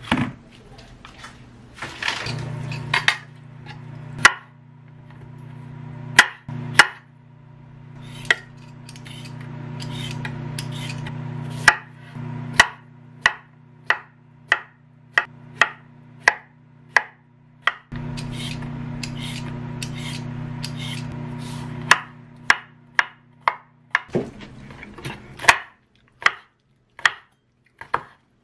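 A chef's knife chopping cucumber and then green chili on a wooden cutting board, in a run of separate sharp strikes on the board. Under most of it runs a low steady hum, which stops about four seconds before the end.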